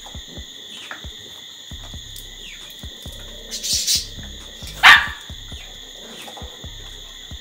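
A single loud dog bark about five seconds in, falling in pitch, over a steady high insect drone and small clicks.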